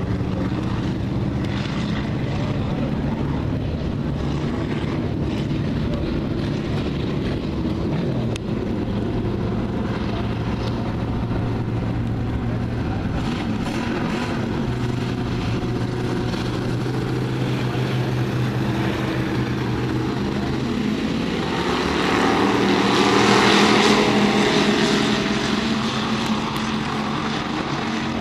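The engines of a field of IMCA Hobby Stock race cars running as the pack circles a dirt oval, a steady drone. It swells louder a little past two-thirds of the way through as the pack comes past, then eases off.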